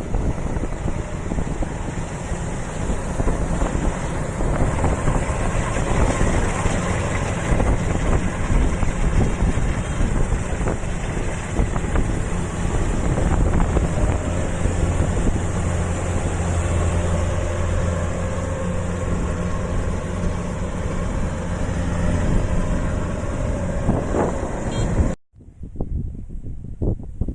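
Kubota rice combine harvester's engine and threshing machinery running steadily, with wind buffeting the microphone. The sound cuts off abruptly near the end, leaving mostly wind.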